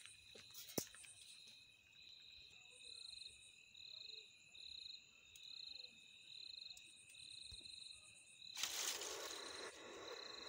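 Crickets chirping, short high trills repeating a little more than once a second over a steady high ringing. About nine seconds in there is a brief rustle lasting about a second, the loudest sound here.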